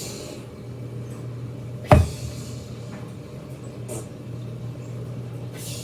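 A single sharp knock about two seconds in, followed by a few faint clicks, over a steady low hum.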